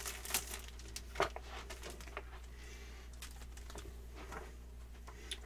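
Packaging handled by hand: a plastic-sealed instruction manual and its wrapping give soft rustles and scattered light taps and clicks. A few sharper clicks come about a second and about two seconds in, over a faint low hum.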